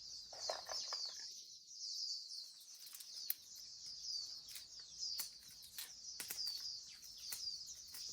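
Small birds chirping and twittering continuously, a dense stream of short, high-pitched falling chirps, with scattered faint clicks.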